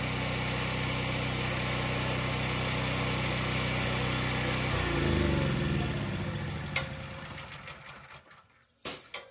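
Small engine of a gas pressure washer running steadily. About five seconds in its pitch drops, then it fades away, with a short knock near the end.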